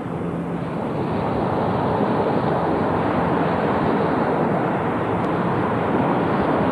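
Steady noise of ocean surf mixed with wind buffeting the camcorder microphone.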